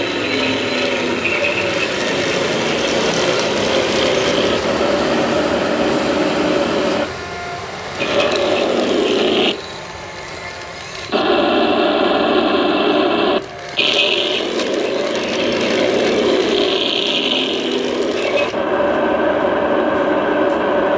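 Sound-effect unit of a 1/16-scale RC M60 tank model playing a continuous tank engine sound, with drive-motor and gear noise mixed in. The level drops back briefly three times, once for about a second and a half, and a few short high whines come and go.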